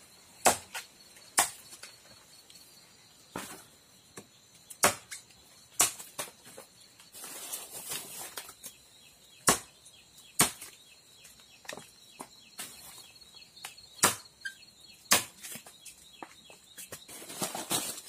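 Machete blade chopping into the bark of a bendo (Artocarpus elasticus) tree, a dozen or so sharp strikes at irregular gaps of about a second or more, scoring the trunk so its latex runs out for bird-lime glue.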